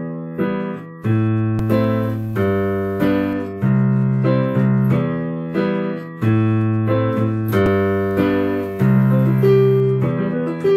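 Piano recording, made through a computer's built-in microphone, playing back with its background noise taken out by ReaFIR's noise subtraction: bass notes and chords struck about once a second, each fading before the next.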